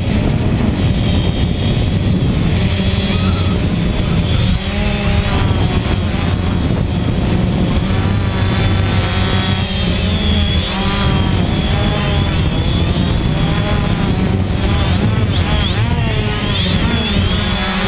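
DJI Phantom quadcopter's motors and propellers, heard up close from the camera on board in flight: a steady loud buzz with whining tones that waver up and down in pitch.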